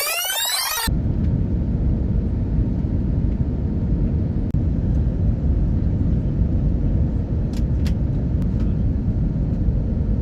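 Steady low rumble of an airliner cabin in flight, with a few faint clicks about 7 to 8 seconds in. A brief sweeping sound in the first second precedes it.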